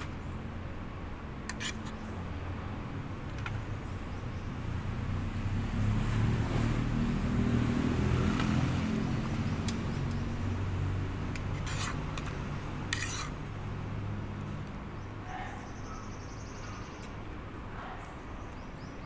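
A motor vehicle passing close by: a low engine rumble grows louder about a quarter of the way in and fades away over several seconds. A few light clinks of a metal spoon and fork on a plate.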